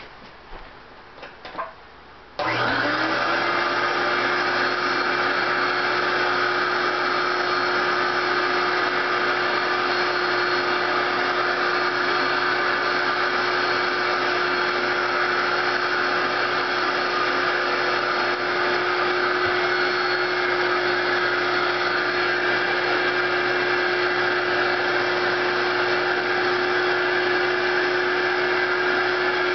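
Eureka 500 series canister vacuum switched on a little over two seconds in: its motor spins up with a brief rising whine, then runs at a steady pitch. Before it starts there are a few light clicks and handling noises. The owner says it sounds like the bearings need oiling or greasing.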